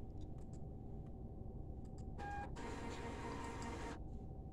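A receipt printer runs at the service counter: a short tone about two seconds in, then about a second and a half of steady printing noise that cuts off, over faint room hum and a few small ticks.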